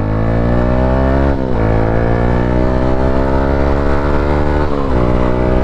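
Yamaha Sniper 150's single-cylinder four-stroke engine running loud through an open exhaust with the silencer removed, pulling under way. Its pitch climbs steadily, drops at an upshift about one and a half seconds in, climbs again, and drops at a second upshift near the end.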